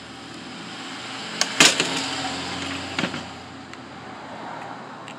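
A motor vehicle going by, its noise swelling and then fading over a few seconds. A sharp knock, struck twice close together, comes about one and a half seconds in, and a lighter click near three seconds.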